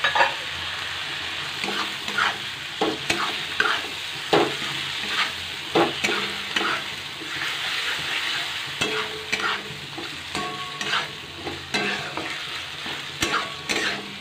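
Chopped tomatoes sizzling in hot oil in a metal kadai, with a metal spatula scraping and knocking against the pan in quick, irregular strokes as the masala is stirred and fried.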